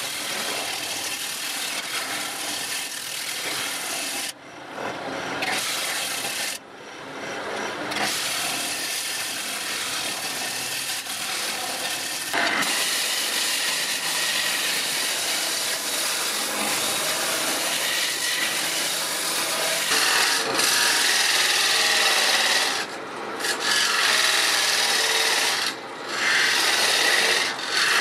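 Turning gouge cutting a spinning wood blank on a lathe, a continuous rough scraping hiss of shavings peeling off. It stops briefly a few times: near 5 and 7 seconds in and twice near the end.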